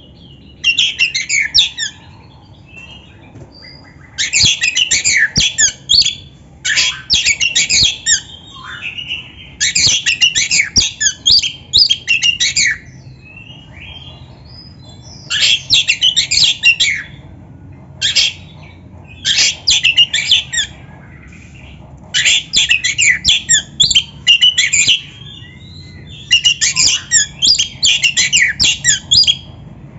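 Oriental magpie-robin (kacer) singing loud, rapid phrases of high notes in about ten bursts of one to three seconds each, with short pauses and a few faint notes between them.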